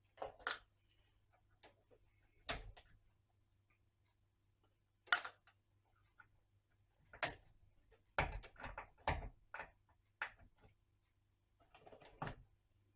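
Scattered sharp metallic clicks and clinks of a screwdriver working sheet-metal screws out of a radio receiver's steel cabinet and screws being dropped into a container, with a quick run of clinks around the two-thirds mark.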